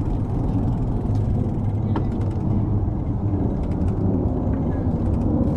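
Wind rumbling on the microphone of a camera riding along on a moving bicycle, a steady low noise, with a few faint clicks about two seconds in and again in the second half.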